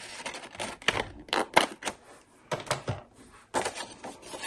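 Scissors snipping through a paper book page, a run of sharp, irregularly spaced snips.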